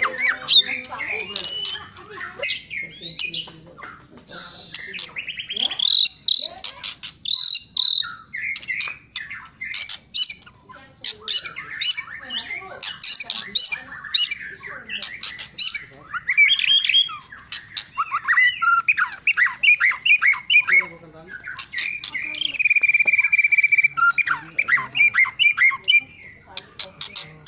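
White-rumped shama (murai batu) singing nonstop in full song: a long, varied run of whistled phrases, sweeping notes and fast chattering strings with only short breaks.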